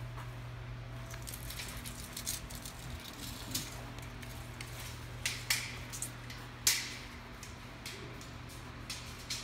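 A steady low hum with scattered light clicks and scuffs, the loudest about five and a half and nearly seven seconds in.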